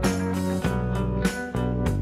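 Instrumental background music with a steady beat and sustained chords.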